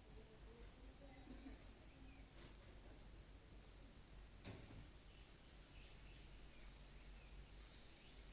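Near silence: faint room tone with a steady high hiss, a few short high chirps every second or two, and one faint click about four and a half seconds in.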